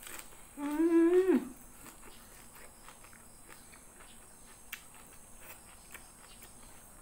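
A woman's short closed-mouth "mmm" of enjoyment with her mouth full, about a second in, ending in a drop in pitch. Then soft, scattered clicks of chewing and mouth sounds as she eats raw kenikir leaves and rice with her hands.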